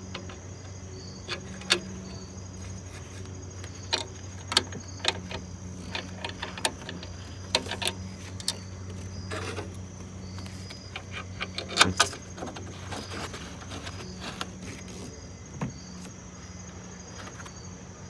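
Irregular metal clicks and taps of hand tools and hardware while a long bolt is threaded in and tightened, the loudest cluster about twelve seconds in. Crickets chirp steadily behind it over a low hum.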